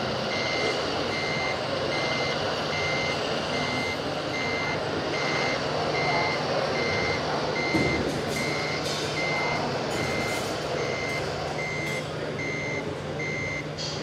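Reversing beeper of a scale RC tipper truck's sound module, beeping steadily at about one beep every 0.8 s over a low steady hum, and stopping shortly before the end.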